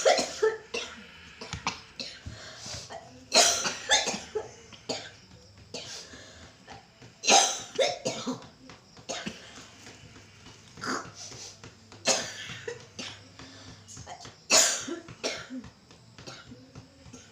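A woman coughing hard and repeatedly, in fits every few seconds, some coughs coming in quick pairs, with throat clearing between: a chronic cough that has lasted for years without healing.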